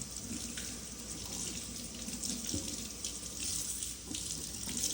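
Water running from a tap into a sink while hands are washed under it: a steady hiss with a few small knocks and splashes.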